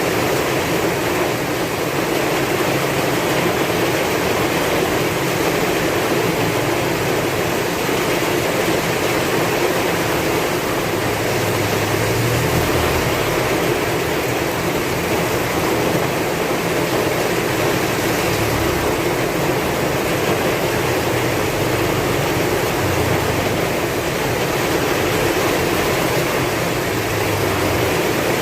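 Heavy rain pouring in a dense, steady hiss, with strong wind swelling low underneath now and then.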